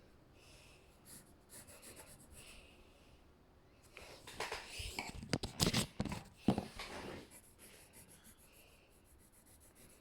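Pencil strokes scratching on paper. A louder stretch of rustling with a few sharp knocks comes about halfway through.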